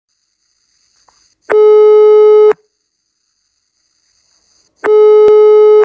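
Telephone ringback tone: two long, steady beeps of about a second each, a few seconds apart, as the call rings at the far end before it is picked up.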